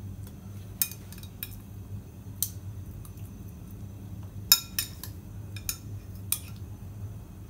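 Metal tongs clinking against an aluminium steamer basket and a glass bowl while fish fillets are moved into the steamer: a scatter of sharp clicks, busiest about four and a half seconds in, over a steady low hum.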